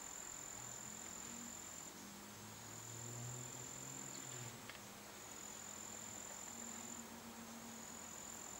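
Faint, steady high-pitched insect trill, with a low hum underneath.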